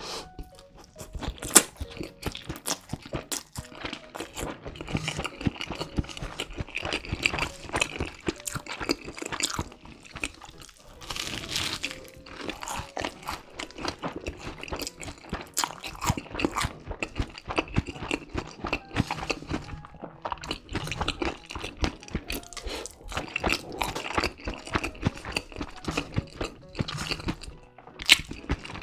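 Close-miked crunching and chewing of a crispy, Flamin' Hot Cheetos-crusted cheese pork cutlet: a dense, irregular run of crisp crackles and bites with wet chewing between them. Faint background music sits under it.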